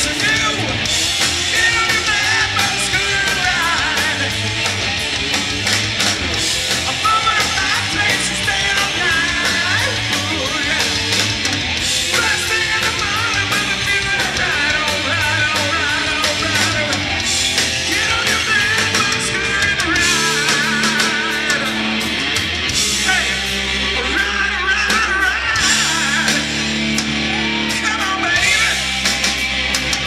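A hard rock band playing live and loud: a singer over electric guitar, bass guitar and drums, heard from among the audience.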